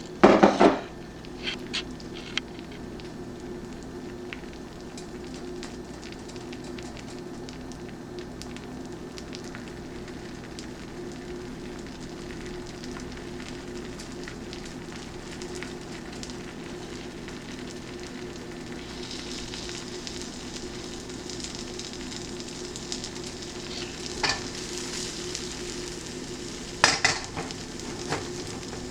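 Korean street toast frying on a hot griddle: a steady sizzle over a constant low hum, the sizzle growing louder about two-thirds of the way through. A few sharp clatters, one loud cluster at the start and two more near the end, stand out above it.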